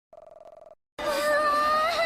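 A short faint buzz, then about a second in a loud wailing cry: one long held note that then starts to waver up and down in pitch.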